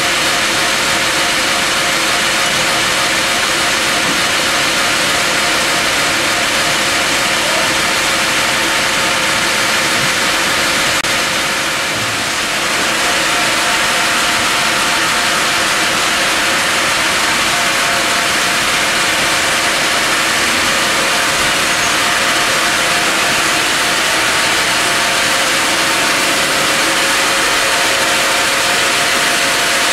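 LBL Brenta CD horizontal bandsaw running steadily without cutting wood: a constant mechanical hum from the drive and turning band blade, with steady whining tones, dipping briefly about twelve seconds in.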